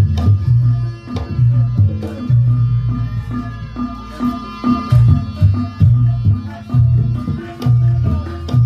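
Live Javanese jaranan ensemble music: quick hand-drum strokes in a driving rhythm over a repeating low pulse, with a held higher melodic tone running through it.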